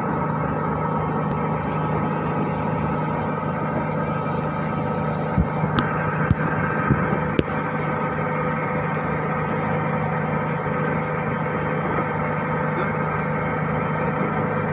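Steady drone of the squid-fishing boat's engine running at a constant speed. A few sharp knocks come about five to seven seconds in.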